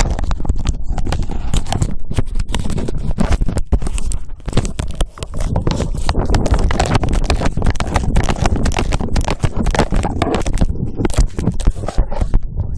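Handling noise from a phone microphone duct-taped to a running Rhodesian ridgeback's collar: rapid, irregular knocks and scraping as the phone and collar jolt with each stride, over a constant low rumble.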